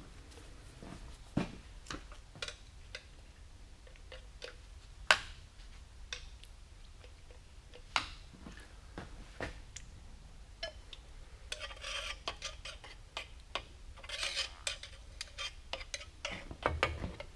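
Scattered metallic clinks, taps and knocks of tools and parts being handled by hand, with a denser stretch of rattling clatter in the second half.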